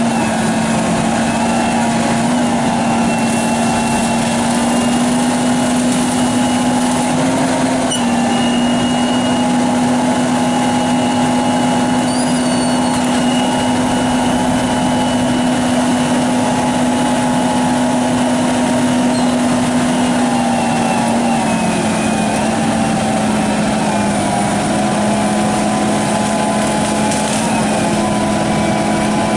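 An engine of tree-removal equipment running steadily at a constant high speed. Its pitch steps slightly about eight seconds in and again around twenty-one seconds in.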